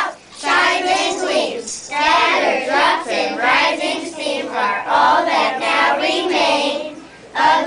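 A group of young children singing a song together in unison, in phrases with short pauses between them.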